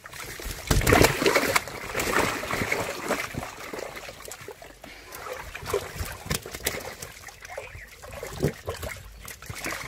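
Water splashing and trickling with irregular slaps and knocks as freshly caught fish thrash about, loudest about a second in.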